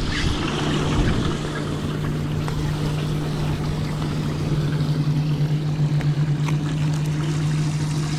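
A motor on a bass boat humming steadily with a low, even tone over a wash of water and wind noise. The hum grows louder and slightly wavers past the middle.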